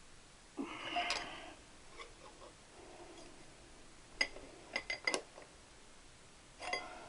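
Metal tools and engine parts clinking on a workbench: a short scrape about half a second in, then a few sharp clinks around the middle and another near the end.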